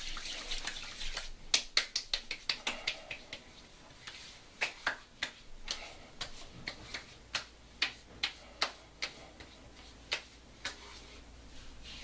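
Hands slapping and patting aftershave onto a freshly shaved face and neck: sharp skin slaps, a quick run of pats in the first few seconds, then single slaps about two a second.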